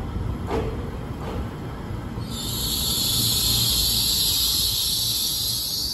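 EMU3000 new Tze-Chiang electric train rolling slowly into the platform with a low rumble. About two seconds in, a loud high hiss sets in and holds for about three and a half seconds as it brakes toward a stop.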